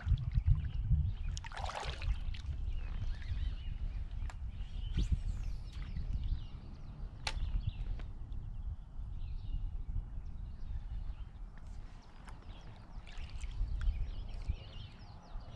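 Outdoor ambience on a kayak: a steady low rumble with scattered sharp clicks and knocks, and a few faint high calls near the middle.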